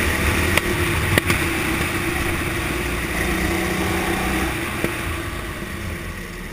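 Go-kart engine running at speed, recorded from the kart, with two sharp knocks about a second in. The engine note fades and drops off near the end as the kart slows into a corner.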